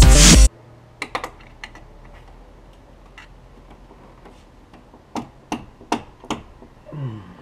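Electronic music cuts off about half a second in. After it come scattered small clicks and taps of metal parts being handled while a clamp is fitted on the turbo pipework of a Subaru engine bay, with a brief tone that falls in pitch near the end.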